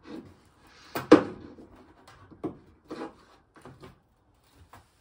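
Knocks and scrapes of a tile backer board being pushed and pulled by hand against a plywood wall, jammed tight in its space. A string of separate knocks, the loudest about a second in.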